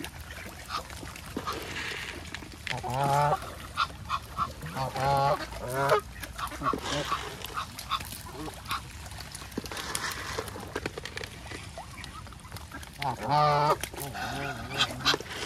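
Geese honking: several longer calls with a wavering pitch about 3, 5 and 13 seconds in, among many short, sharp sounds.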